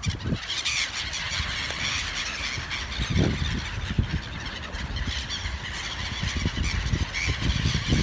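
A large flock of gulls calling all at once, a dense din of overlapping high squealing cries, as they scramble in a feeding frenzy over bread thrown onto the water.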